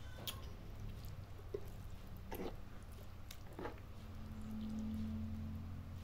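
Metal fork and spoon working through a bowl of noodles and vegetables, with a few short clicks of the utensils, over a low steady hum.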